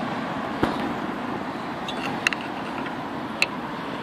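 Steel flathead screwdriver clinking against a car's rear disc-brake caliper as it is levered to push the caliper piston back: a dull knock, then three short ringing metallic clinks, over a steady hiss.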